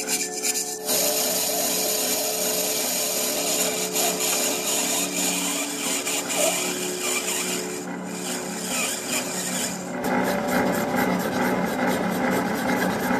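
Metal lathe running with a steady motor hum while its cutting tool turns down a spinning metal rod, a continuous scraping hiss. About ten seconds in the sound changes to a hand file rasping against the turning work in quick repeated strokes.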